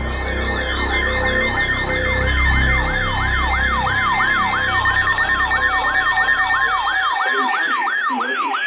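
Electronic siren wailing rapidly up and down, about three sweeps a second, over dark music with a deep low drone that cuts off about seven seconds in.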